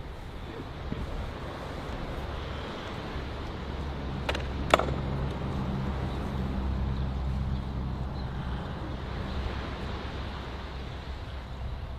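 A motor running with a steady low hum under wind noise, with two sharp clicks a little before the middle, the second one louder.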